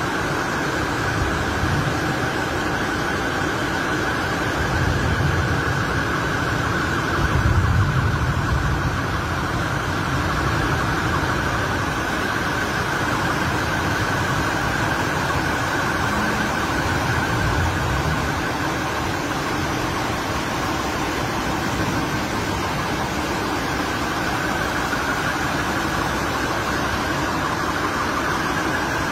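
Floodwater rushing through a street under heavy rain: a loud, steady rush with a low rumble that swells about seven to eight seconds in.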